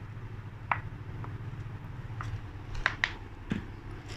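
A few sharp, separate clicks and light clinks from handling a small plastic essence bottle and setting a metal spoon into a stainless steel mixing bowl, over a low steady hum in the background.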